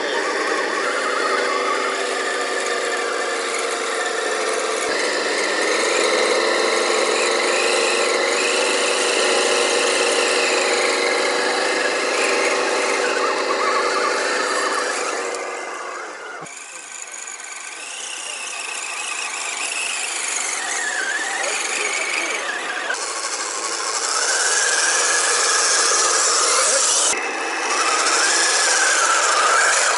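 Whine of radio-controlled scale 4x4 trucks' electric motors and gear transmissions, the pitch rising and falling with the throttle. It drops away briefly about halfway, then picks up again.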